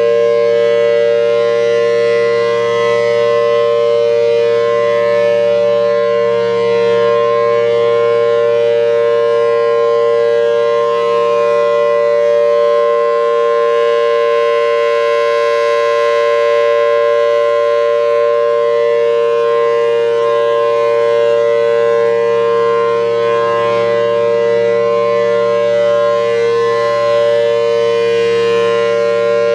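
Federal Signal Thunderbolt 1000T civil defense siren with a 4/5 port chopper and a C-series blower, sounding the full alert as a loud steady dual tone: two tones a major third apart, held without rising or falling.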